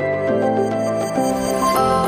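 Calm background music with held notes that change every half second or so.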